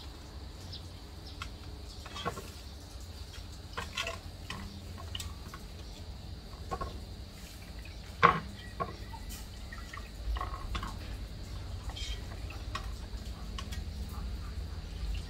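Water sloshing and dripping in a metal basin as a slaughtered chicken is dunked and turned in hot water: scalding the carcass to loosen its feathers for plucking. Scattered small splashes and clicks, with one louder sharp hit about eight seconds in.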